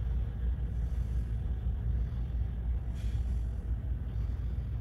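Steady low rumble of a ferry underway at sea, heard from inside a passenger deck. A faint click comes about three seconds in.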